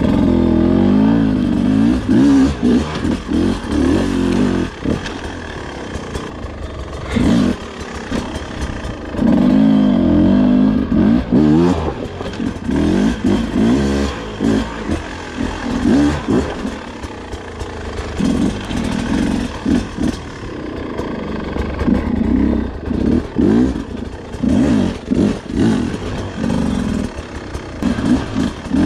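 Beta 250 two-stroke enduro motorcycle engine being ridden off-road, revved up and down again and again in short bursts of throttle with brief drops in between.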